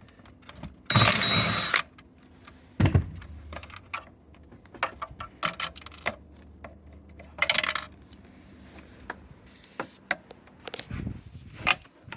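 Irregular handling clatter: scattered metallic clinks and clicks, a short burst of rustling noise about a second in, and two dull thumps.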